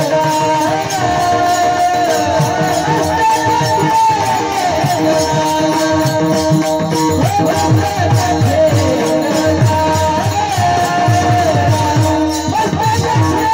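Marathi devotional kirtan music: a high voice sings a bending melody over steady held accompanying tones, with a fast, even metallic jingling rhythm and dense drum strokes underneath.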